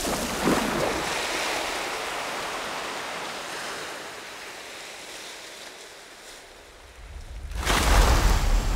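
Proboscis monkeys plunging into a river, each leap a heavy splash of water. One splash comes right at the start and dies away slowly over several seconds; a louder one follows near the end.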